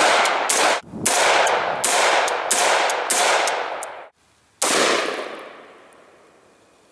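AR-15 rifle firing a rapid string of shots, about three a second, each ringing out briefly. The string cuts off about four seconds in, and one more shot follows half a second later and rings out slowly.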